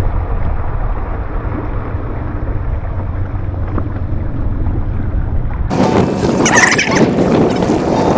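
Wind rumbling on the microphone on open water. Nearly six seconds in, the sound cuts abruptly to louder, brighter noise with repeated high calls.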